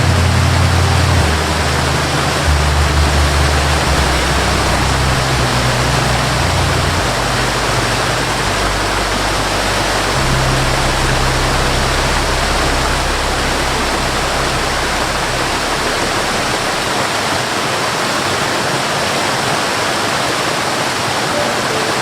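Steady rushing of water, like a waterfall or fast stream, even and loud. Underneath, a low drone shifts in pitch and fades out about three-quarters of the way through.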